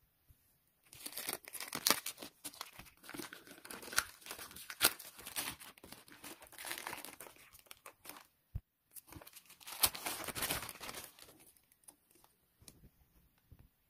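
Plastic courier mailer bag torn open by hand, its plastic crinkling and rustling with sharp crackles as the book inside is pulled out. The rustling starts about a second in and dies away about two seconds before the end, leaving a few light handling ticks.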